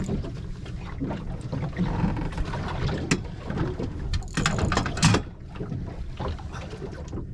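Wind buffeting the microphone on a small fishing boat, over water and hull noise, with scattered clicks and a louder rush of noise about four and a half to five seconds in.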